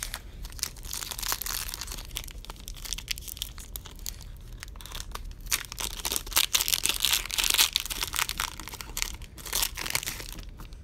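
Plastic trading-card pack wrappers being torn open and crinkled in the hands: a steady run of rustling and ripping, loudest about six to eight seconds in.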